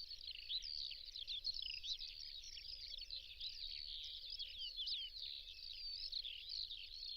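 A chorus of many small birds chirping and twittering at once, short quick calls overlapping without a break.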